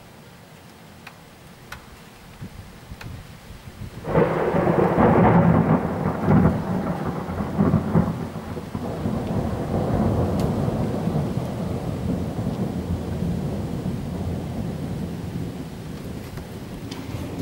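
Thunder from a supercell thunderstorm: a loud clap breaks suddenly about four seconds in, then rolls on as a long rumble that slowly fades. Rain patters throughout.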